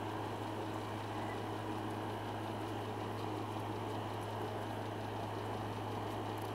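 A steady low hum with an even hiss over it, unchanging throughout, like a machine running.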